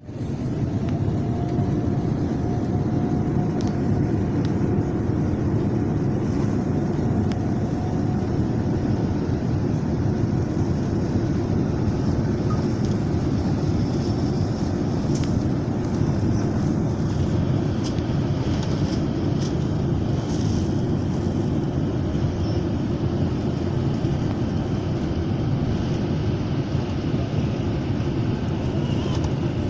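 Boeing 787 jet airliner during takeoff, heard from inside the cabin: a loud, steady rumble of engines and rushing air, with a faint high tone in the first several seconds.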